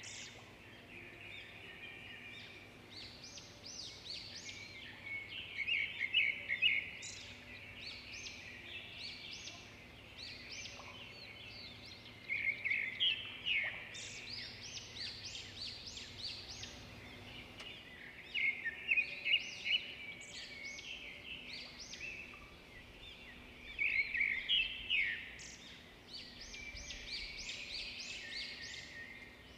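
Small birds chirping and twittering in quick runs of high notes, with a louder burst of song about every six seconds over a faint steady background.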